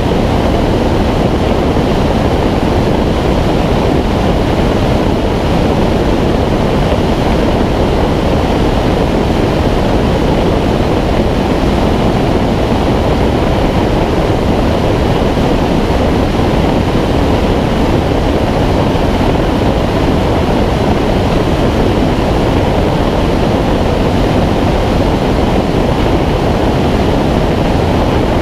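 Steady, loud rush of airflow over a camera mounted on the wing of a Schweizer 2-33 glider in flight.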